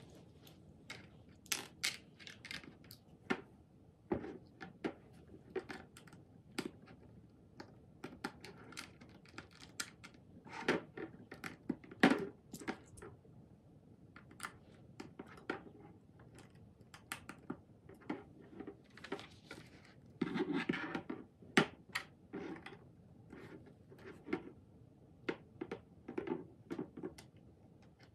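Small plastic LEGO bricks clicking and clattering in quick, irregular ticks as pieces are picked from a loose pile and pressed together, with a brief rustle about twenty seconds in.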